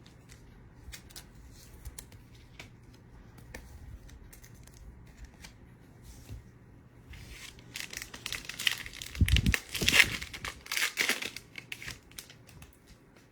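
Foil wrapper of a trading card pack being torn open and crinkled, loudest and busiest in the latter half, after a few faint clicks of cards being handled.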